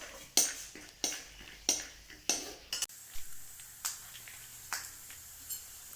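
Spatula stirring dry fruits and nuts as they fry in oil in a pan: a short scrape about every two-thirds of a second, fainter and sparser after about three seconds.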